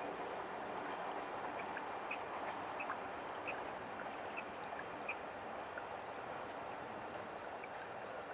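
Steady outdoor ambient hiss with faint, short high chirps scattered irregularly through it.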